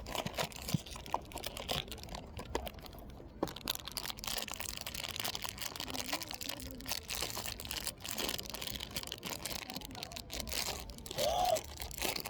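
Packaging being unwrapped by hand: crinkling and tearing, with many small clicks and taps throughout.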